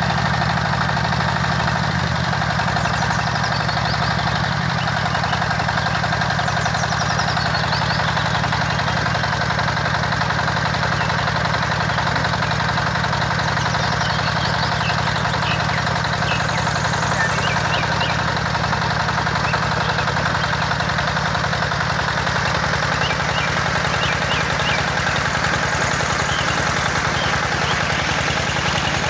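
Miniature gasoline engine running steadily, driving a small water pump, with water from the outlet hose splashing into the pond.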